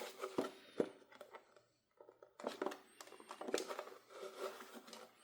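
Board game components and packaging handled by hand: a couple of light clicks, a short pause, then a run of small clicks, taps and rustling.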